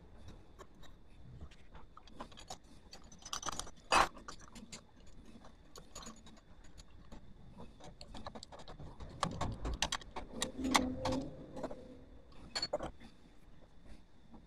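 Metal motorcycle front-fork parts and fittings clinking and tapping as they are handled during assembly: scattered light clicks, a sharper knock about four seconds in, and a cluster of knocks and rattles around ten to eleven seconds.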